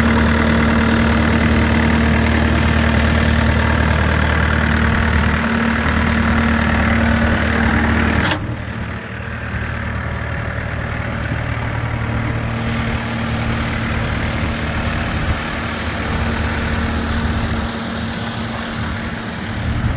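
Bobcat T550 loader's diesel engine running steadily with a low, even hum. About eight seconds in, the sound drops abruptly and carries on quieter with less hiss.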